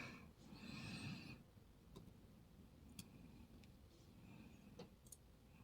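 Near silence, with a brief soft rustle about half a second in and a few faint light clicks as the short copper pin springs are tipped out of a lock cylinder.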